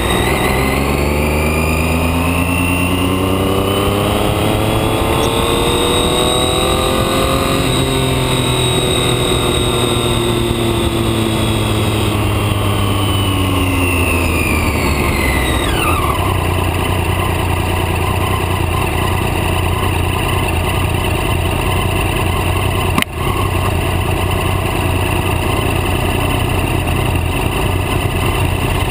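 Motorcycle engine rising in pitch as it accelerates for several seconds, then falling as it slows, and settling into a steady low-rev idle for the second half. One sharp click about two-thirds of the way through.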